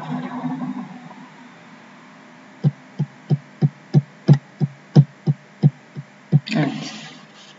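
A run of about a dozen dull thumps, roughly three a second, followed shortly after by a brief burst of noise.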